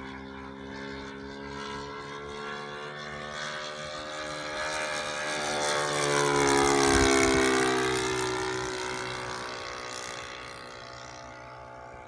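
Saito 1.50 four-stroke glow engine on a radio-controlled Taylorcraft model plane, running through a low flyby. The engine note swells to its loudest about seven seconds in, drops in pitch as the plane passes, then fades away.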